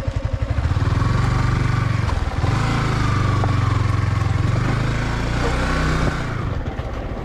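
Sports motorcycle engine pulsing at low revs, then revved up about a second in and held there while the bike climbs a steep, rough hill track, with a short dip in revs, before easing off about six seconds in.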